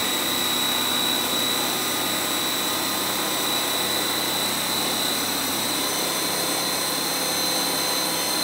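Countertop food processor running at full speed, blending ground almonds and water into almond milk. Its motor gives a steady high whine over a whirring rush, the whine edging slightly higher in pitch.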